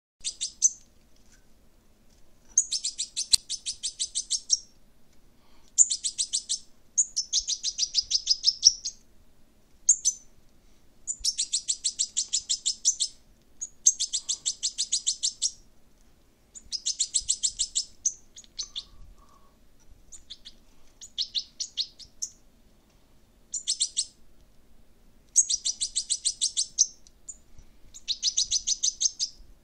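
Fledgling European goldfinch begging while being hand-fed from a stick: bouts of rapid, high chirps, each lasting one to two seconds, repeated with short pauses.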